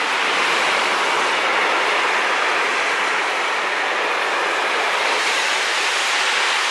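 Freight train of tank wagons rolling past at speed: a steady rushing noise of steel wheels on the rails.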